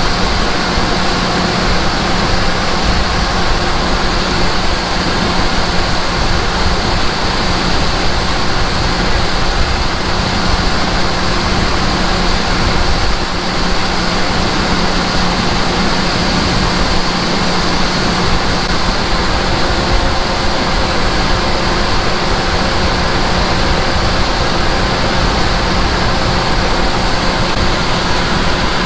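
Large farm machinery running steadily: a constant loud mechanical rush with a steady hum underneath, unchanging throughout.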